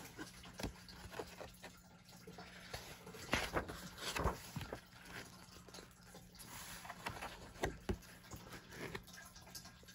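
Paper pages of a colouring book being smoothed by hand and turned, with soft rustles and irregular crinkles and ticks, busiest a few seconds in and again near the end, over a faint steady low hum.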